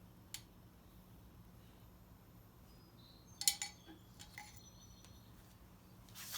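Light metallic clinks and taps of hand tools on steel fuel-line fittings: a single click near the start, a louder cluster with a brief ring about halfway, a few smaller ticks after it, and a short rising hiss at the very end.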